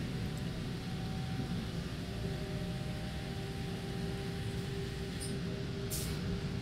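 Running noise inside a moving electric passenger train: a steady low rumble with faint, even hum tones above it, and two brief high sounds near the end.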